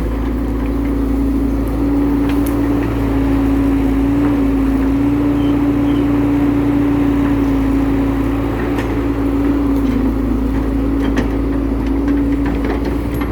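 Excavator running steadily while digging, with a constant loud hum over a low engine rumble and a few faint clicks or knocks, mostly in the last few seconds.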